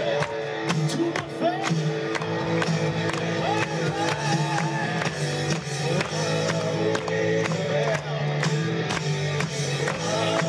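A live band plays: guitar and drums keep a steady beat under sung vocals. The audience claps along.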